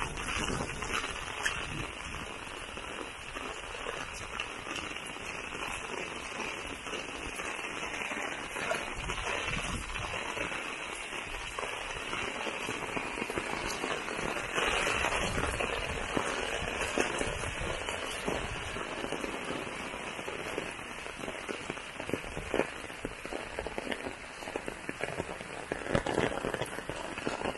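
Heavy rain falling: a dense, steady hiss of rain on surfaces, with many individual drop hits standing out and a few louder hits near the end.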